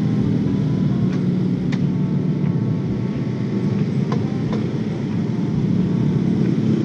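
Motorcycle running slowly in heavy traffic, heard through the rider's camera as a steady low drone of engine and surrounding traffic, with a few faint ticks.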